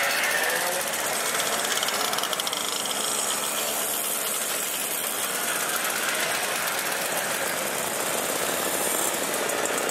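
A procession of vintage mopeds and small motorcycles riding past, making a continuous buzz of many small engines. Single engine notes rise and fall as each rider goes by.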